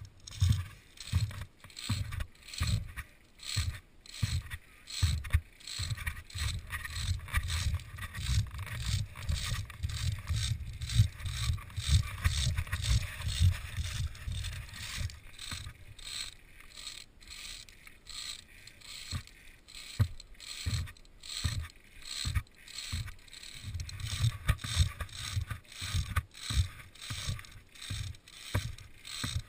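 Wind buffeting a helmet-mounted action camera's microphone in uneven gusts, over a quick, irregular run of knocks and rustles from the climber moving and handling gear.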